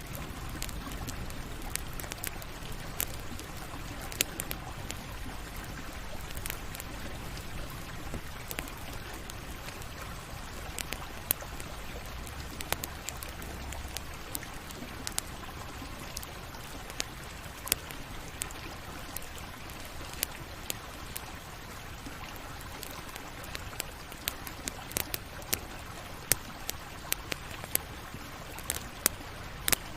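Campfire burning: a steady hiss with frequent sharp crackles and pops from the burning wood, coming thicker near the end.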